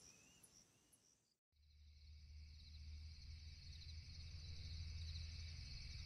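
Near silence, then after about a second and a half a night-forest ambience fades in. It is steady chirping insects, cricket-like, over a low hum, growing slowly louder.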